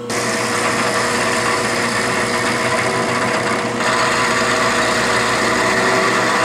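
Milling machine spindle running with a half-inch carbide end mill side-cutting a 4130 chrome-moly steel tube: a steady machining whine and hiss, whose higher noise changes about four seconds in.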